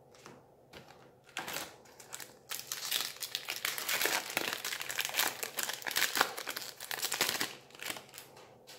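Foil wrapper of a Magic: The Gathering booster pack being torn open and crumpled: a dense crinkling crackle that starts about a second and a half in and dies away near the end.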